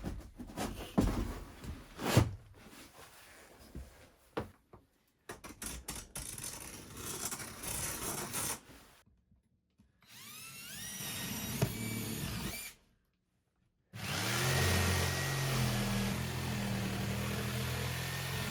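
Power drill work cut together: knocks and handling at first, then a drill spinning up with a rising whine, a brief dead silence, and a drill motor running steadily.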